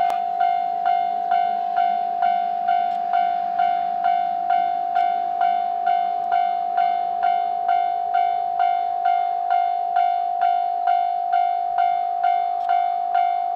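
Railway level crossing warning alarm ringing, an electronic bell tone repeating evenly about three times a second, signalling that a train is approaching.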